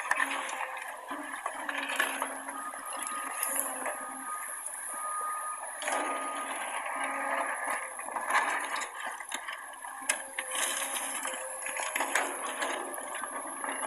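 Heavy earthmoving machinery working, a steady noisy din with scattered knocks and clanks and a thin whine for a few seconds in the middle.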